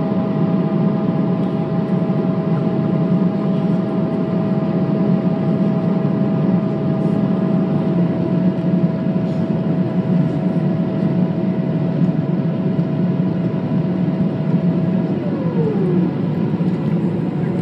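Cabin noise of a Boeing 777-300ER on approach with flaps down: a loud, steady rush of airflow and engine noise from its GE90-115B turbofans. A held whine runs through it and drops in pitch about fifteen seconds in.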